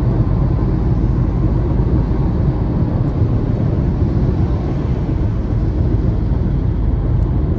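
Car cruising at freeway speed, heard from inside the cabin: a loud, steady low rumble of tyre and road noise.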